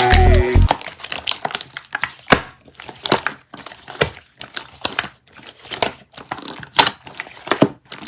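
Slime being squeezed and pressed by hand, giving an irregular string of short crackling, popping clicks. Background music cuts off less than a second in.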